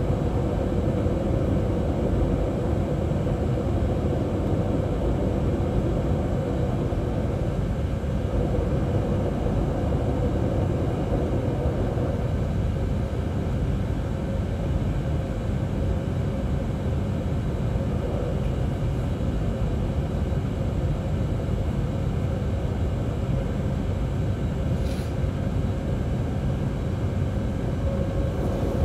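Steady cabin noise of a jet airliner sitting at idle while it waits to take off: an even rumble with a constant mid-pitched hum and a faint high whine, unchanging throughout.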